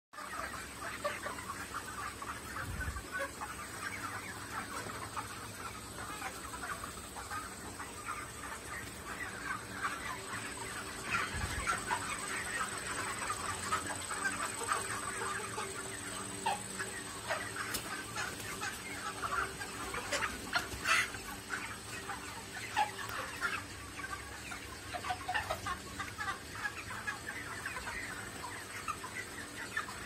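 A flock of broiler chickens clucking and cheeping continuously, with a faint steady hum from the spinning belt-driven side fan beneath.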